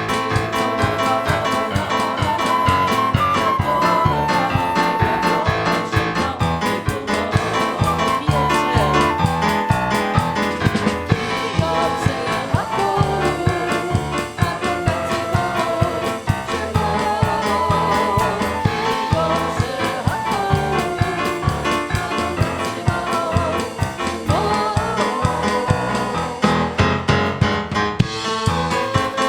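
Live worship music: singing over piano or keyboard with a steady beat.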